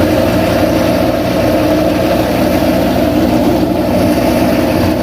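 An engine idling steadily, an even, unchanging note throughout.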